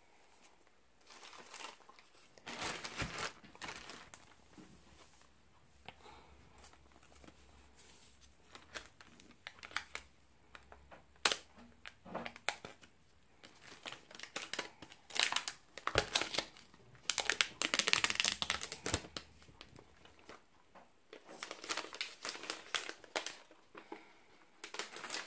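Plastic packaging crinkling and tearing as it is handled and opened, in irregular bursts, heaviest about two-thirds of the way through, with a few sharp clicks.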